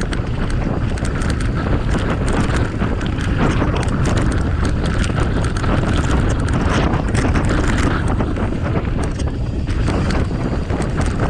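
Wind buffeting the GoPro microphone during a bicycle ride down a rough trail, with frequent sharp rattles and knocks from the bike over bumps.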